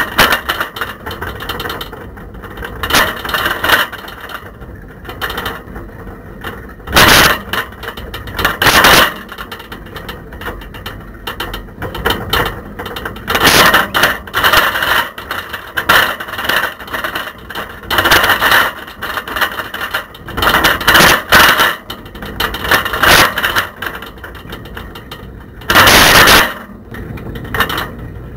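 Camera rattling and clattering in a bicycle basket as the bike is ridden along the road: irregular loud bursts of rattling over a steady background of riding noise. The uploader calls it really rattly and noisy.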